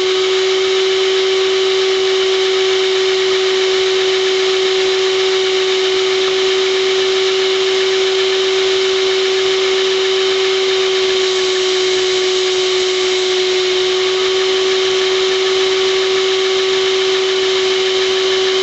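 Vacuum cleaner motor running steadily with a constant whine, supplying the air that drives a Lego air engine.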